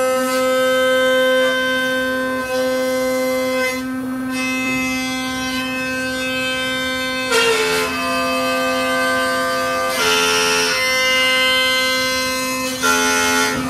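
Music: one steady held drone note throughout, under a melody line that changes pitch every second or two, in the manner of bagpipes.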